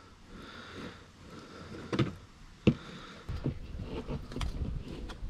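Knife knocking on a cutting board as a squid tube is chopped into bite-sized pieces: two sharp knocks about two seconds in and just under a second apart, among lighter handling sounds, with a low rumble in the last two seconds.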